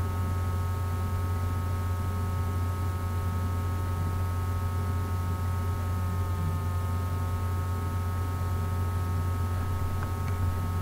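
Steady low electrical hum with a row of faint, steady higher tones above it.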